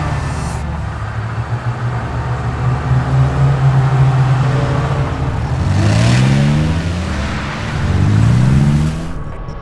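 Car engine sound effect: a steady low engine drone, then two revs rising in pitch in the second half.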